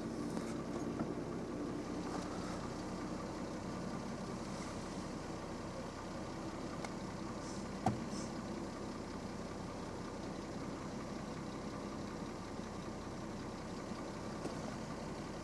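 Steady low mechanical hum from a running motor, with faint steady tones, and a single sharp click about eight seconds in.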